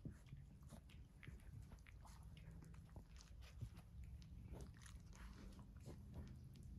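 Faint sounds of a Cavalier King Charles Spaniel mother and her puppy play-wrestling: scattered soft clicks and mouthing noises from play-biting, over a low steady hum.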